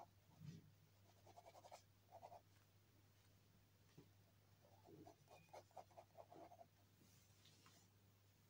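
Black ballpoint pen scratching across paper in short strokes, drawing thin lines, with a pause midway; faint, over a steady low hum.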